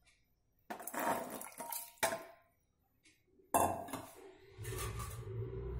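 Washed rice being tipped from a bowl into the spiced water in a pressure cooker: a few separate clatters and knocks of the bowl against the cooker, with some water sound and a low rumble near the end.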